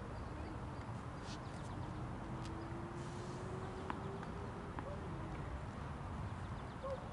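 Steady low rumble of outdoor background noise at a tennis court, with a few faint, sharp clicks scattered through it.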